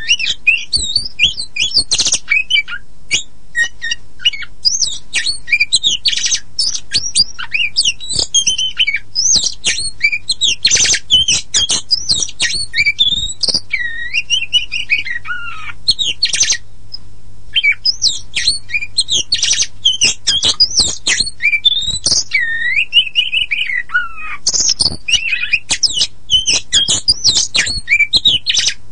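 Oriental magpie-robin (kacer poci) singing a fast, varied song of sharp whistles, trills and harsh chattering notes. Long whistled phrases slide downward twice, about halfway through and again near the end, with a brief pause between them.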